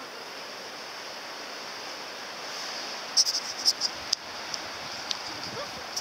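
Steady outdoor hiss of wind and open air, with a quick run of sharp clicks and knocks about three seconds in and a single click about five seconds in.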